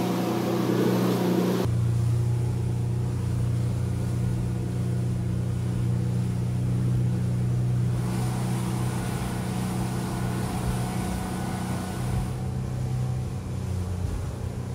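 Wooden motorboat's engine running under way, a steady low drone over the rush of water and wind. About two seconds in the sound shifts abruptly to a louder, deeper drone.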